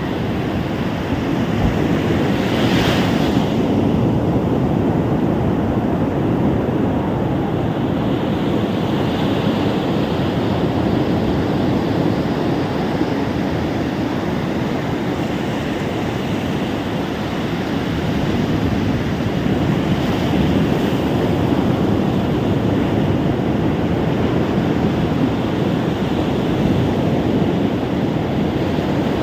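Ocean surf washing onto a beach: a continuous rush of breaking waves that swells and eases, with a brief brighter hiss about three seconds in. Wind buffets the microphone.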